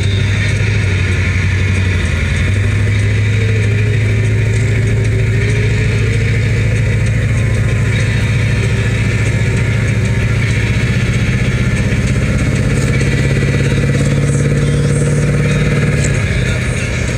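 A large car's engine running under way, a loud low drone that steps up a couple of seconds in and climbs slowly as the car gathers speed, then drops suddenly near the end as the throttle eases or it shifts.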